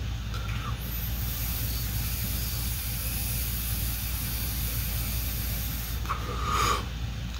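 A long inhalation drawn through a cannabis oil cartridge vape pen: a steady airy hiss lasting about five seconds, ending about six seconds in. A brief throat sound follows near the end.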